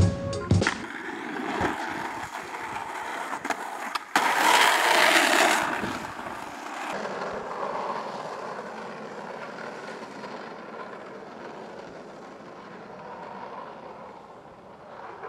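Skateboard wheels rolling over concrete, with a sudden loud rough stretch about four seconds in that then fades gradually.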